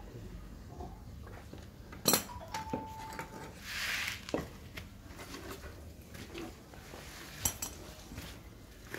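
A few sharp metallic clicks and clinks from hand pruning tools being handled, the loudest about two seconds in with a brief ring after it, and a short rustle of leaves and roots in between.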